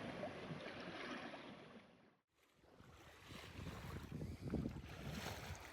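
Wind buffeting the microphone and water washing along a slow-moving sailing yacht's hull. The sound cuts out completely for a moment a little past two seconds in, then resumes.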